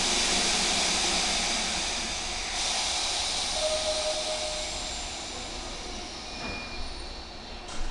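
Compressed air hissing from an electric commuter train standing at the platform, loud at first and fading away, with a brief steady tone just before halfway.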